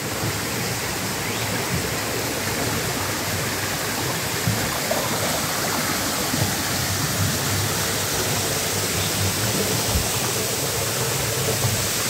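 Rocky creek swollen and muddy after heavy rain, its water rushing steadily over and between boulders.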